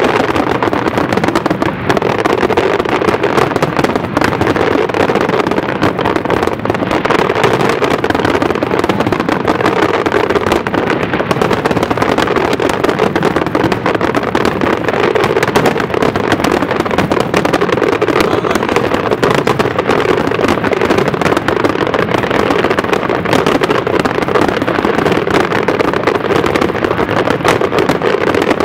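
Dense, continuous fireworks barrage: many overlapping bangs and crackles merging into one steady, loud rush of noise with no pauses.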